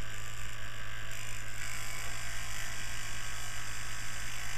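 Small handheld electric fan running, a steady motor buzz with an even whoosh of air.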